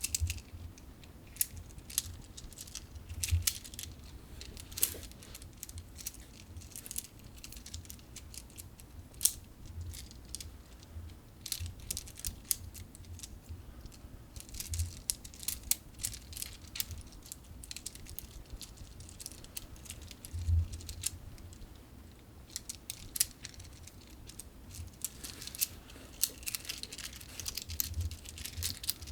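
An Infinity Cube fidget toy being folded over and over in the hand, its hinged blocks clicking and clacking in irregular quick runs.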